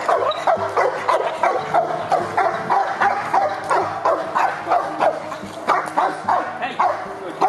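Giant Schnauzer barking in a rapid string, about two to three barks a second, in protection work: the dog switches on at a man facing it with no agitation or equipment.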